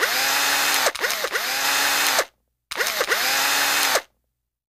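Fishing reel drag buzzing as line is pulled off by a hooked fish, in two stretches, the second shorter, each cut off suddenly.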